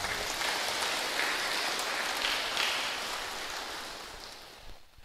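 Audience applauding: the clapping starts at once and dies away over about four seconds.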